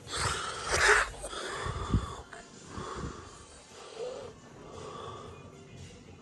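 Phone camera being handled and set down on a table: a loud rustling scrape over the first second, then a sharp knock about two seconds in, then faint room sounds.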